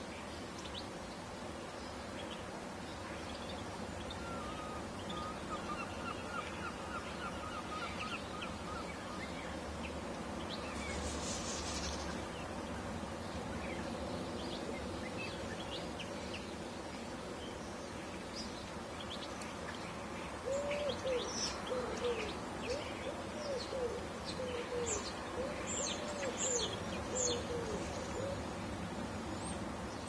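Wild birds calling: scattered short high chirps, a quick run of repeated notes early on, and from about two-thirds of the way in a series of lower arched calls mixed with rapid high chirps, over a steady background hiss.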